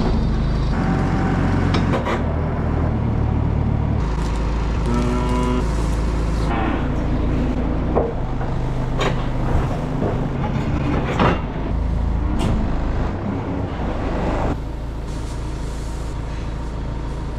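Diesel engine of a farm loader running steadily while it carries a round bale, with a few sharp clanks. The engine note eases slightly near the end.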